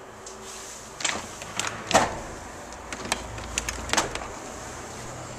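Street traffic from a main road heard through open windows: a steady background hum, with a vehicle's low rumble swelling about three to four seconds in. A few sharp knocks and clicks come about one, two and four seconds in.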